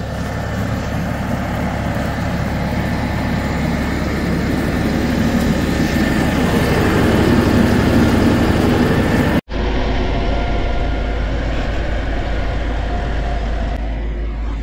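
Heavy equipment engine running steadily, with a sudden break about nine seconds in before a similar steady engine sound carries on.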